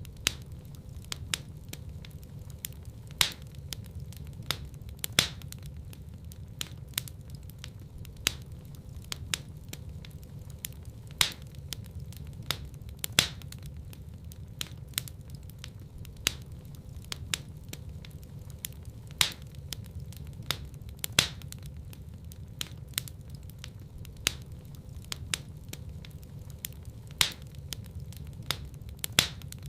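Wood fire burning in a fireplace: irregular sharp crackles and pops, a louder pop every few seconds, over a low steady rumble.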